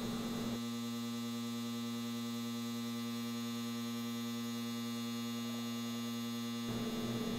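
Steady electrical mains hum, a low buzz with a stack of overtones.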